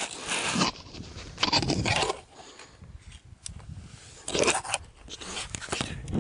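Irregular bursts of rustling and crunching, about four in all, as clothing and hands rub against a body-worn camera's microphone while its wearer moves on snowy rock.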